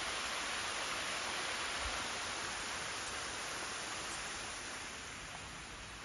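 Water rushing down a sloping rock ledge in a small cascade, a steady hiss that fades somewhat over the last couple of seconds.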